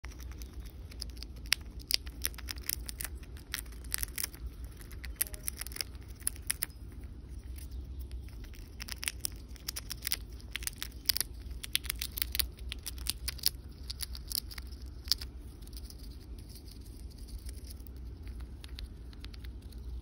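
Eastern chipmunk gnawing open a peanut shell held in its paws: quick, irregular crunches and cracks of the dry shell, thinning out near the end.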